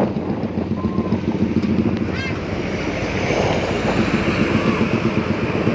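Bus engine and road noise, a steady rumble with no horn sounding.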